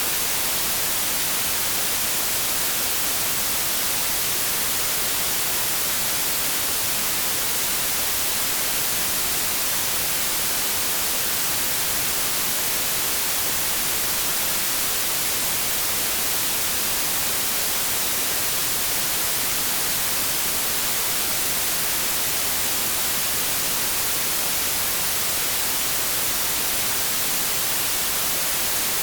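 Steady synthetic noise signal, 'inverse' white noise, tilted toward the treble so that it is an even, bright hiss with little bass, unchanging throughout.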